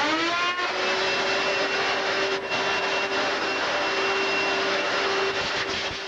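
Hoover vacuum cleaner running, its motor rising in pitch in the first half second as it comes up to speed, then running steadily with a high whine.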